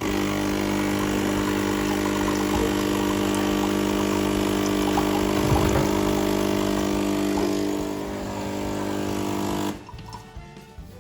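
Sage Nespresso coffee machine's pump running with a steady buzzing hum as it pushes water through a capsule. It starts suddenly, gets a little quieter near the end and then cuts off abruptly.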